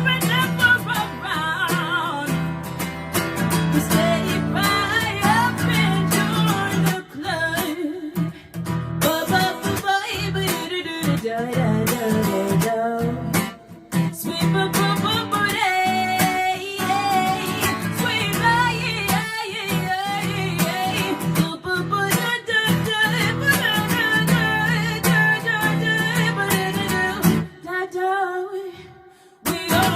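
A woman singing an original song to her own strummed guitar, with a brief break in the playing near the end.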